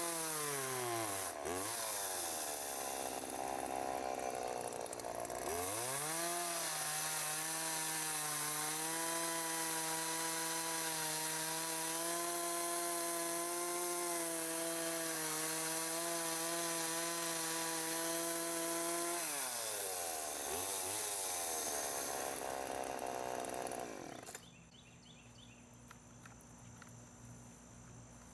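Homelite two-stroke chainsaw held at high revs while cutting wood, its pitch dropping back and climbing again several times, with a long steady stretch in the middle; the chain is very dull. The saw shuts off about 24 seconds in, leaving faint insects chirping.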